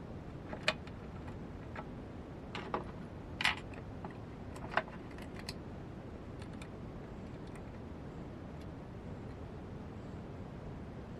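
Metal clinks and knocks as a hex key is worked on a mini lathe's four-way steel tool post and the tool post is lifted off the slide: about half a dozen sharp taps in the first five seconds, then only a faint steady hiss.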